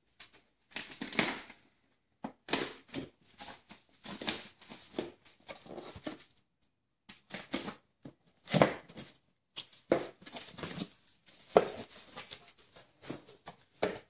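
A taped cardboard box being opened: packing tape slit with a small knife and torn away, with irregular scratching, ripping and cardboard flaps rustling.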